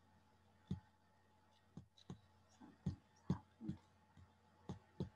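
Faint computer mouse clicks and small taps, about eight scattered irregularly over five seconds.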